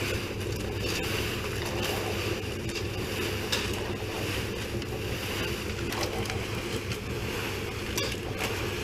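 A motor running steadily with a low hum, and a few faint clicks over it.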